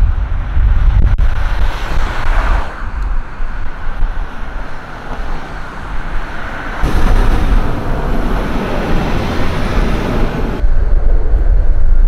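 Road traffic: cars driving past, a noisy low rumble that swells as vehicles pass, loudest from about seven to ten and a half seconds in.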